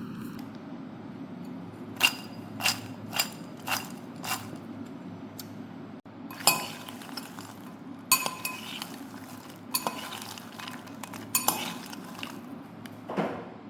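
Sharp clinks of hard objects against a dish: five evenly spaced taps about half a second apart, then a few clustered clinks every second or two.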